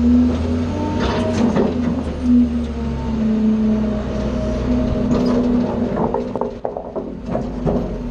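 Refuse truck's hydraulic packer panel cycling through the hopper and compacting bagged garbage, with a steady hydraulic hum over the engine's rumble. Scattered metal clanks and knocks come from the packer mechanism, more of them in the second half.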